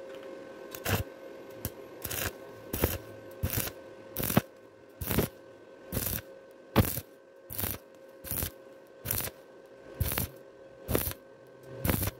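Stick (arc) welding electrode on thin galvanized square tube, the arc crackling in short bursts about once every 0.8 seconds. The arc is struck and broken over and over, a stop-start technique for keeping thin metal from burning through. A steady faint hum runs underneath.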